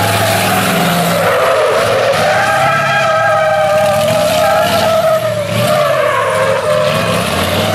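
Mercedes-Benz race truck's rear tyres squealing loudly as they spin in a smoky burnout, the squeal wavering in pitch, dipping through the middle and rising again near the end. The truck's diesel engine runs hard underneath.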